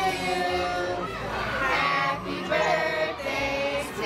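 A group of voices singing a melody together in held notes.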